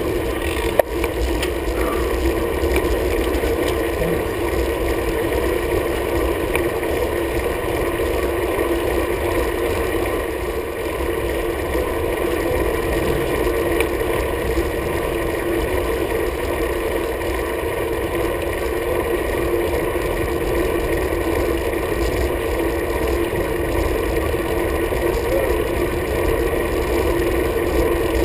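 Steady wind rushing over a handlebar-mounted camera on a road bike ridden at speed, with tyre and road rumble underneath. There is one sharp click about a second in.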